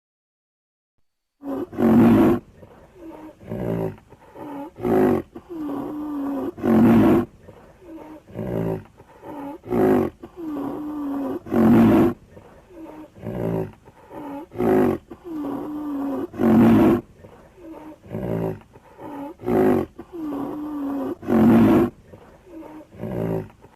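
Lion roaring: a loud roar about every five seconds with shorter grunts between them. The sequence repeats the same shape each time and starts about a second and a half in.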